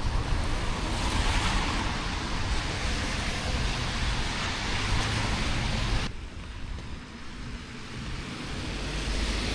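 Road traffic on a wet road: the hiss of tyres swells as a vehicle passes and cuts off abruptly about six seconds in, then another swells near the end.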